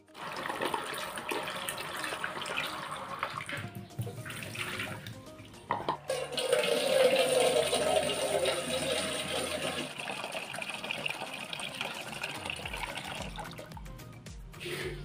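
Tap water running into a metal cooking pot at a kitchen sink, filling it. The stream starts at once, dips briefly about four and six seconds in, and runs loudest from about six seconds on.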